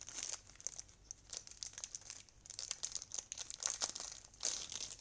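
Clear plastic bag crinkling in a series of irregular crackles as it is handled and opened to slide a power bank out, loudest near the end.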